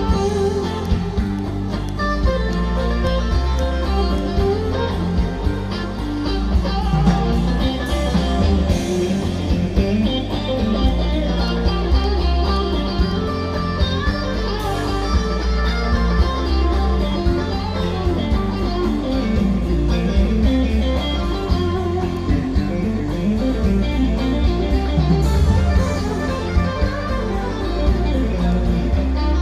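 Rock band playing live with electric guitar leading over bass guitar and drums, and no vocals.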